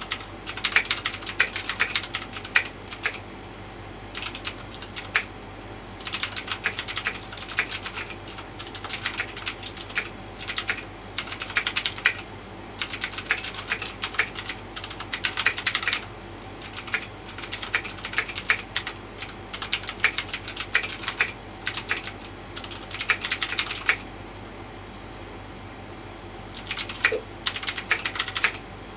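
Filco mechanical keyboard with Cherry MX Blue switches being typed on fast, each keystroke a sharp click. The typing comes in long runs, broken by pauses of a few seconds, once a few seconds in and again near the end.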